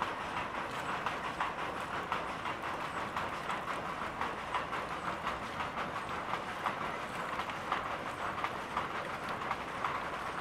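Paniyaram frying in oil in a multi-mould pan over an open wood fire, a steady sizzling with dense fine crackling.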